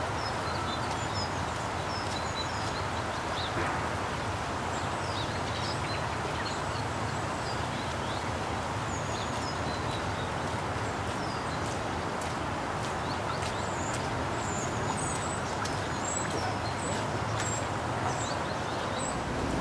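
Small birds chirping and calling repeatedly over a steady hiss and low hum from the narrowboat under way.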